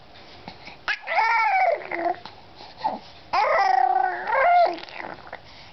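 Baby babbling and making drawn-out vocal noises that slide up and down in pitch: one starting about a second in after a short click, and a longer one from about three and a half seconds in.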